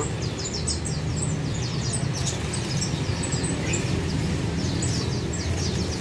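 Many small caged songbirds chirping, a dense run of rapid high chirps that slide downward in pitch, over a steady low background rumble.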